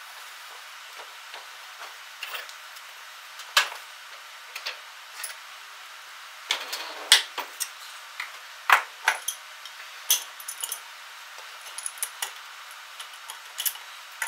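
Irregular metal clicks and clanks, a dozen or so, from the parts of a Harbor Freight 61179 mini tire changer being handled and fitted onto its post (the cone clamp, then the bead breaker arm). Under them runs a steady hiss.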